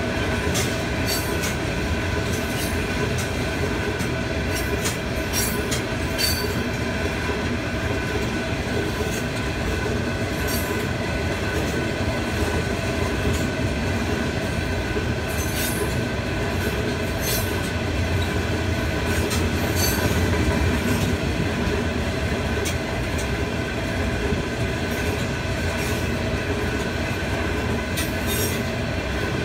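Freight train's cars rolling past a level crossing: a steady rumble of steel wheels on rail, with irregular sharp clicks and clanks as wheels cross rail joints, heard from inside a car.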